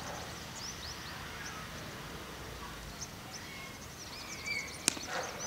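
Birds chirping over open-air background noise, then near the end a single sharp crack of a cricket bat hitting the ball.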